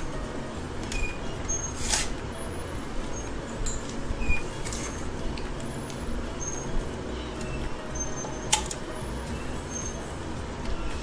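Eating at a meal on the floor: a couple of sharp clinks of steel plates or tumblers, about two seconds in and again after eight seconds, over a steady low hum, with short high-pitched chirps now and then.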